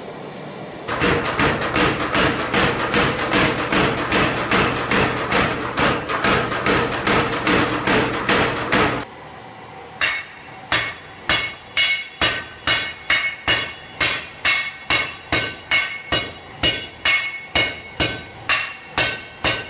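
Blacksmiths' hammers striking hot iron on an anvil in a steady rhythm. For the first eight seconds the blows come quickly, about four a second. Then sledgehammers and a hand hammer strike in turn at about two and a half blows a second, each blow ringing.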